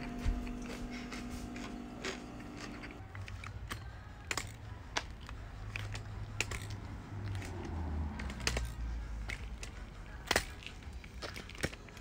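Crutches and footsteps on a hard path: irregular sharp taps, roughly one a second, over a low rumble. A steady hum is heard for about the first three seconds.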